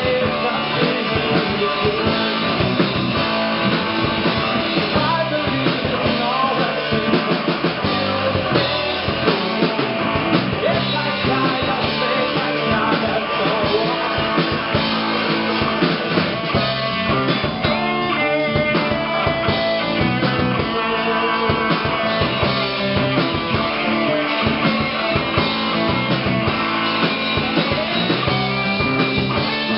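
A rock band playing live: electric guitars, bass guitar and drum kit, loud and steady without a break.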